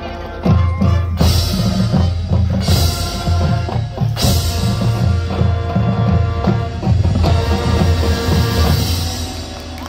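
High school marching band playing: held brass chords over a drumline with heavy bass drum strokes and a few cymbal crashes, easing off near the end.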